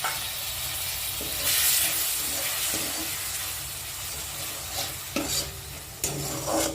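Vegetables and masala sizzling in a hot pan. The sizzle flares louder about one and a half seconds in as a little water goes in to loosen spices stuck to the pan. Near the end a spoon stirs and scrapes the pan.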